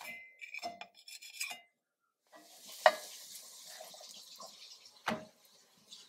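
A spatula scrapes and clinks against a cast iron skillet and plate as a zucchini pancake is lifted out and set down. From about two seconds in, oil sizzles in the hot pan with a steady hiss, broken by two sharp knocks.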